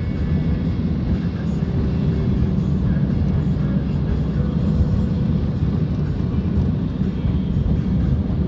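Steady low road-and-engine rumble of a car driving.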